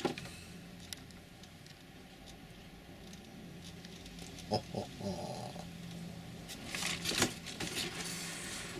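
Handling noise from a cardboard box and the plastic film wrapped around an RC crawler inside it: quiet rustling and scraping, with a few louder knocks and crinkles near the end.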